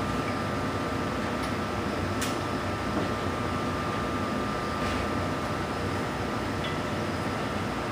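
Steady machine hum like a fan or air conditioner, with a thin high whine, and a couple of faint clicks about two and five seconds in.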